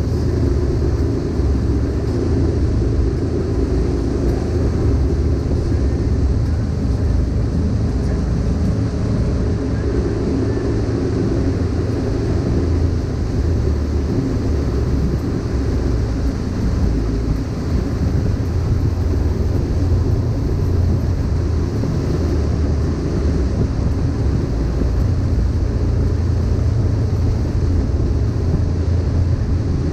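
Wakesurf boat running steadily under way, with a constant low engine rumble.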